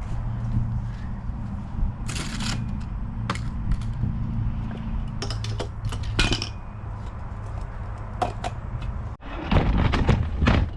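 Scattered knocks, clinks and scrapes of materials being handled over a steady low hum, with a louder, busier stretch of clattering and rustling near the end.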